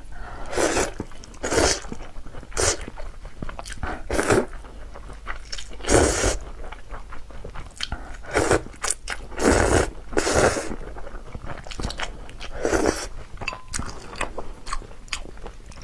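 Close-miked eating of noodle soup: irregular bites and chewing, with bursts of mouth noise every second or so.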